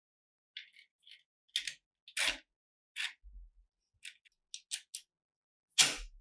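Steel parts of an SVT-40 rifle action clicking and scraping against each other as the recoil spring and receiver cover are fitted by hand: a run of short light clicks and a few heavier knocks, then one loud metallic clack near the end as the cover goes into place.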